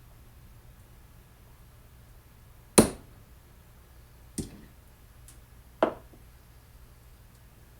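Three sharp knocks about a second and a half apart, starting about three seconds in; the first is the loudest.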